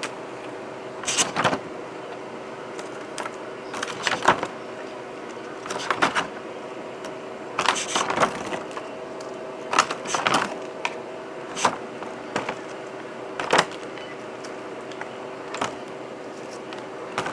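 Dry, freeze-dried meatloaf pieces being picked off metal trays and dropped into a Mylar bag: short, irregular crinkles and rattles every second or two. A steady hum sounds throughout.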